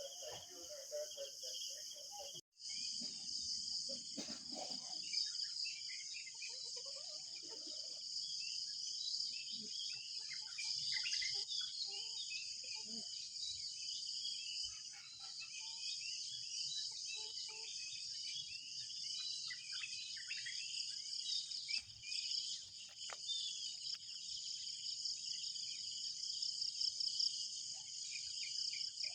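Insects trilling steadily in a high, finely pulsing chorus, with many short bird chirps and calls scattered through it.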